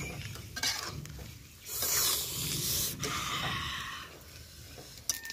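Spiced meat frying in oil in a steel karahi while being stirred with a metal spatula: a burst of sizzling hiss about two seconds in, lasting about a second, then a fainter sizzle, with a few light spatula clicks.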